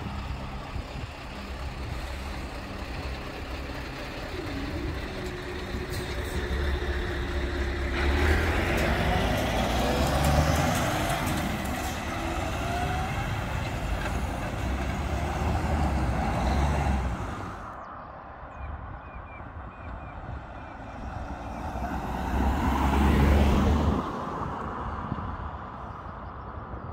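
Road traffic driving over a level crossing: a heavy lorry and cars passing close by with engine rumble and tyre noise. The noise swells with each pass-by, loudest about eight to eleven seconds in and again around twenty-three seconds.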